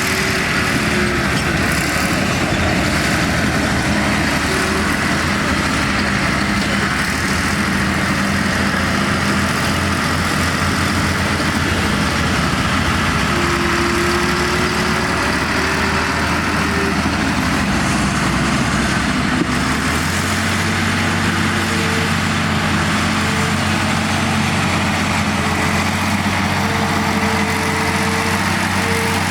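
Heavy diesel engine of a ten-wheel dump truck running steadily, its note shifting about two-thirds of the way through.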